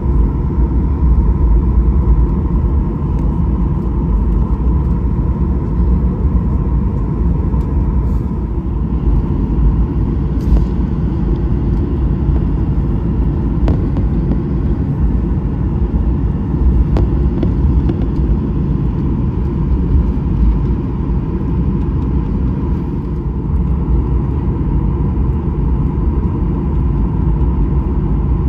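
Steady low rumble inside a Boeing 737-800 passenger cabin, with a constant hum over it and a few faint clicks.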